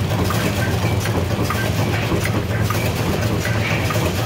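Wet wipe folding and packaging machine running: a steady low hum with a fast, continuous clatter of small clicks from its moving parts.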